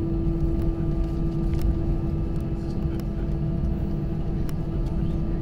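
Airbus A319 cabin noise during taxi: the jet engines at idle and the airframe rolling give a steady low rumble with a constant hum over it, and a few faint clicks.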